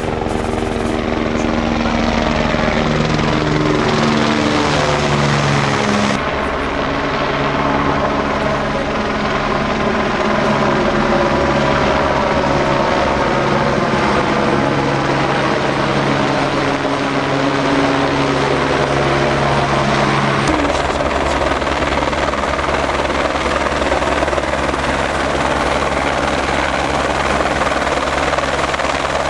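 Light helicopter flying past with the steady beat of its rotor and the whine of its engine. Its pitch drops over the first several seconds, then holds steady.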